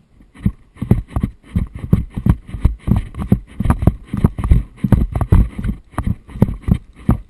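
Running footsteps heard through a helmet-mounted camera: a steady rhythm of heavy thumps, about two to three a second, starting just after the beginning, with gear jostling.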